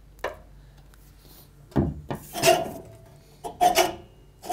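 Bottom-blade adjusters of a cylinder mower being turned by hand: a click, a knock, then two short rasping scrapes, as the blade is backed off slightly from the cylinder because it was set too tight.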